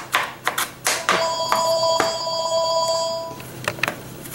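A telephone rings for about two seconds, a steady ring made of several tones at once, starting about a second in. Before and around it a chef's knife chops zucchini pulp on a plastic cutting board, sharp knocks about three a second, slowing to a few chops near the end.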